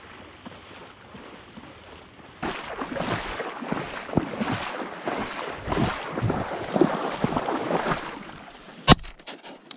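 Water sloshing and splashing close to the microphone in a steady paddling rhythm of about two strokes a second, with wind noise on the microphone. A single sharp knock comes near the end.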